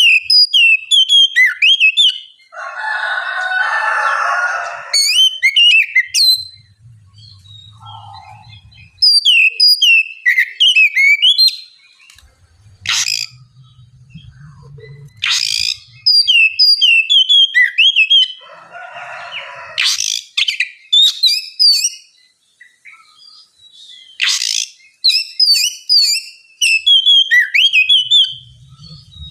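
Oriental magpie-robin singing: repeated phrases of quick, sweeping whistled notes separated by short pauses, with a couple of longer harsh, buzzy stretches and a few sharp, sudden notes.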